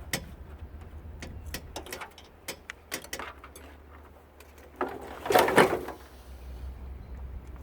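Scattered clicks and light rattles of wiring plugs and connectors being handled and pulled inside a tankless water heater during teardown, with a louder scraping rustle lasting about a second about five seconds in.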